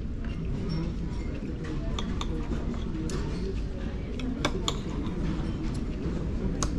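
Cutlery clinking and tapping on plates during a meal, a scatter of sharp light clicks, over the murmur of background chatter in a busy dining room.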